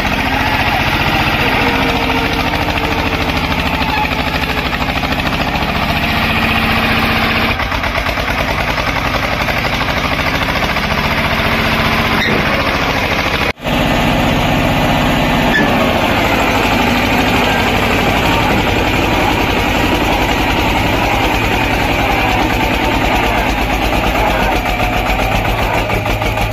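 Eicher 242 tractor engine running steadily under load, pulling a trolley of earth with its rear wheels bogged in mud. The sound breaks off for an instant about halfway through, then carries on.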